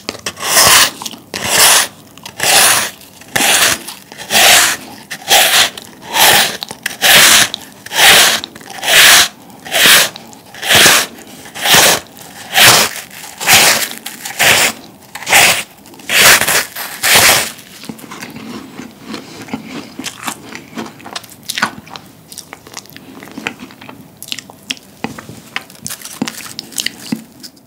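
Giant meringue cookie being nibbled close to the microphone: dry, crisp crunches about once a second. About two-thirds of the way through the bites stop, leaving quieter chewing and the soft crumbling of the meringue being pulled apart by hand near the end.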